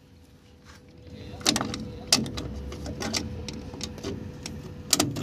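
Irregular metallic clicks and knocks of locking pliers working on the shoe hardware of a rusty rear drum brake. They begin about a second and a half in, after a quiet start.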